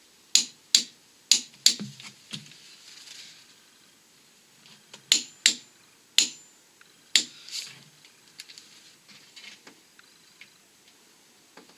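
Sharp metallic clicks and clinks of hand tools and parts being handled during brake and hub reassembly, about ten at irregular intervals, some with a brief high ring, mostly in the first eight seconds.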